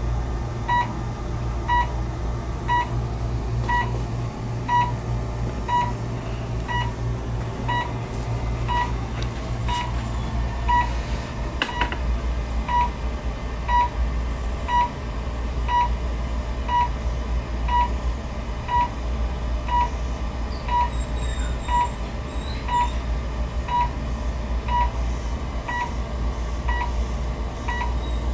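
Class IV therapy laser unit beeping once a second while the laser is firing: short high beeps, evenly spaced, over a low steady hum.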